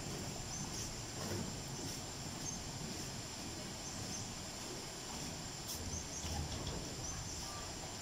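Outdoor ambience at a shallow waterfall: a steady wash of noise with a thin, high, steady insect drone and a few faint, short bird chirps.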